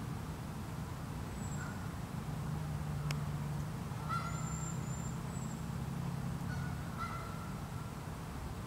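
Canada geese give a few short calls while grazing, over a steady low background rumble. A single sharp click comes about three seconds in.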